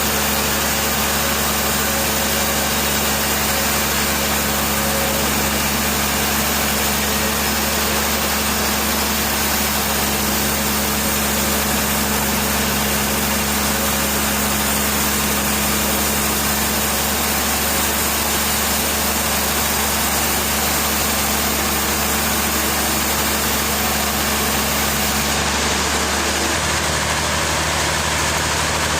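An engine running steadily at idle, a constant loud hum and noise. Near the end the high hiss drops off and the low hum shifts pitch.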